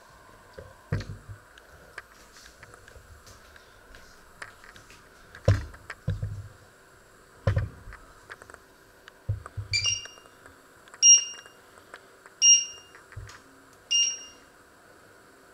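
Four short electronic beeps, about one and a half seconds apart, from a glass-ceramic hob's touch controls, each acknowledging a finger press as the power level is stepped (the display reading 8, then 6). Before them, a few dull thumps.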